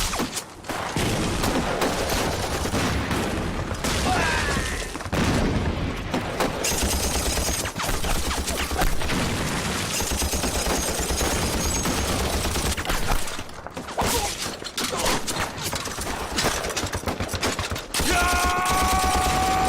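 Battle gunfire: rifle and machine-gun fire in rapid, overlapping shots, with a fast low pulse of automatic fire underneath. Near the end a steady held tone joins in.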